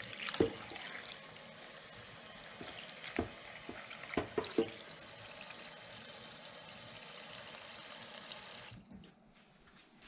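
Kitchen tap running into a stainless steel pot of sauerkraut, the stream splashing onto the cabbage as the pot fills with water for boiling; a few light knocks. The tap is shut off abruptly near the end.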